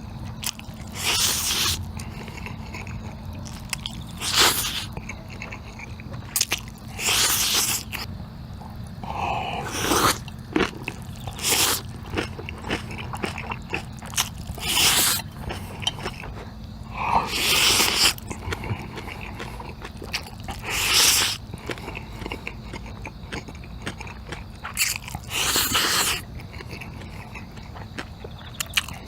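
Close-up eating sounds of black bean noodles (jjajangmyeon): big mouthfuls slurped and chewed, with about nine loud bursts spaced every few seconds.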